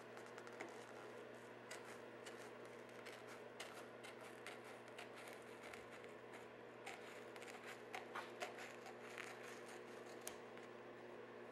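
Scissors snipping through headliner material as it is trimmed at the windscreen opening, with the sheet crinkling as it is handled. It comes as a faint run of short, irregular snips over a steady low hum.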